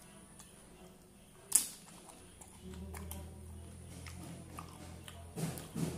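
Eating pani puri: a single loud, sharp crack of a crisp, water-filled puri shell about a second and a half in. A cluster of crunching and chewing follows near the end, over a low steady hum.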